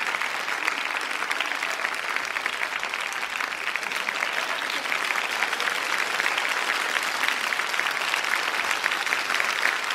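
A studio audience applauding, a steady, dense clapping that holds at the same level throughout.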